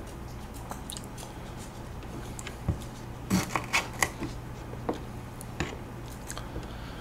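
Knife cutting golden kiwifruit in half and the halves being set down on a plate: a few soft clicks and taps, bunched about three to four seconds in, over a faint steady hum.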